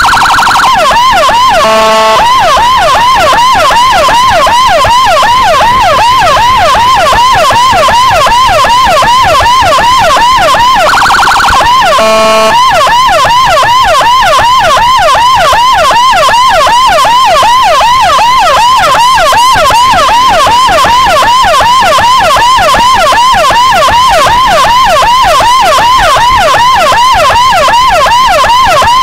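CJB 200E electronic siren through a Toa YD100i speaker on an escort motorcycle, sounding a loud, continuous fast yelp of about three to four rising sweeps a second to clear traffic for an ambulance. Twice, at the start and about 11 seconds in, it switches briefly to a wavering tone and then gives a short horn-like blast before going back to the yelp.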